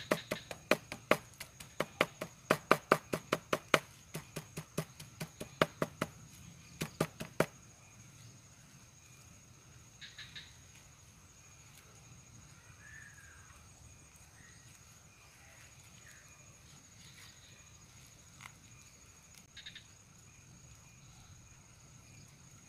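Knife chopping earthworms into bait, the blade knocking down on the surface beneath about three times a second, then stopping about seven seconds in. After that only a few faint ticks over a steady high insect whine.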